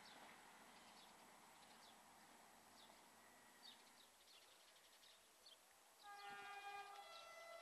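Faint bird chirps over quiet outdoor hiss, then about six seconds in a distant train sounds a held warning note that steps to a second pitch about a second later.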